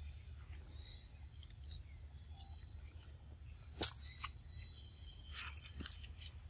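Faint outdoor ambience: a low wind rumble on the microphone and a thin, steady, high insect drone, with two sharp clicks a little under four seconds in.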